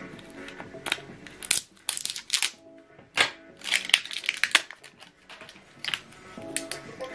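Plastic crinkling and a run of sharp clicks and snaps as a Canon PGBK ink cartridge is worked free of its tape and orange protective cap with scissors and fingers, over soft background music.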